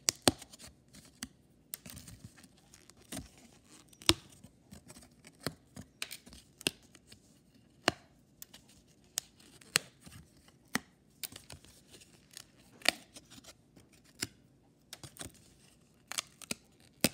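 Cardboard damage counters being punched out of a die-cut sheet one at a time: irregular sharp snaps with brief tearing, roughly one or two a second.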